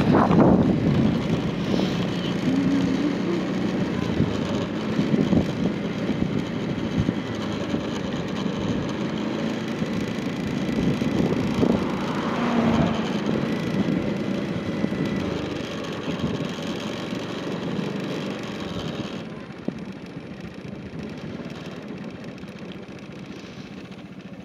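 Roadside traffic noise: a steady rumble of road vehicles that swells around the middle and fades in the last few seconds.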